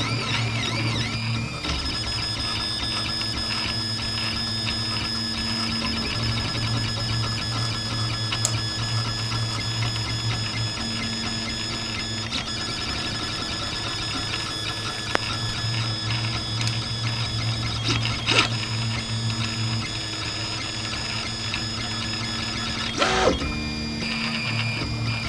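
RepRap 3D printer running a print: its stepper motors whine in steady tones that shift as the moves change, with a couple of sharp clicks in the second half.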